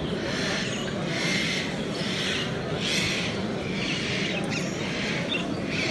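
Many caged show birds chirping and calling at once, a dense overlapping chatter, over a steady low background hubbub.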